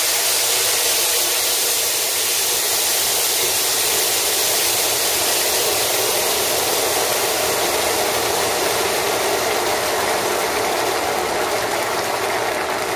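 Water poured into a hot, oiled pan of toasted erişte noodles, hissing and sizzling as it hits the hot pan and boils up in a steady, loud rush of steam.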